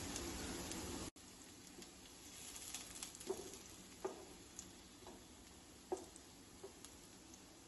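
Oil sizzling softly in a kadai as chopped pieces fry, with scattered pops and a few light knocks of a wooden spatula against the pan as they are stirred. The hiss drops suddenly about a second in.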